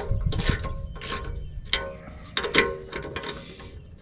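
Socket ratchet clicking in a series of short, irregular strokes as nuts are run onto the stainless steel bolts of an exhaust pipe flange.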